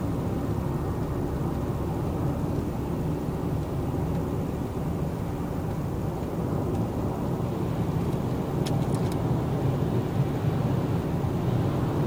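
Steady low road and engine noise inside a moving car's cabin, with a few faint clicks about three-quarters of the way through.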